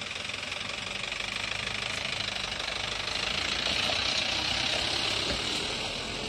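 Mahindra pickup truck's engine running as it pulls away and drives past close by on a dirt track, growing louder to a peak about four seconds in, then easing off as it moves away.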